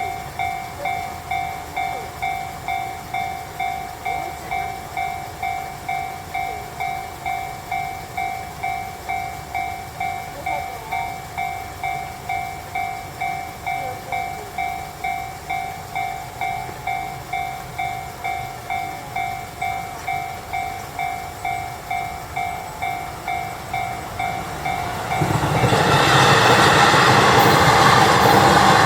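Japanese level-crossing warning bell ringing at a steady pace, about two dings a second, while the barrier is down. About 25 seconds in, a train arrives and the loud rumble of it passing through the crossing drowns out the bell.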